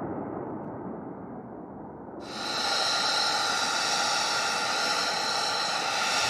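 F-35B Lightning II's jet engine running with a steady rushing noise. About two seconds in it grows louder and brighter, with a high, steady turbine whine of several tones over the rush.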